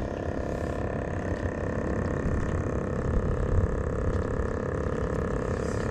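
A steady mechanical drone, like a running motor, held at one even pitch over a low rumble, with no separate knocks or clicks.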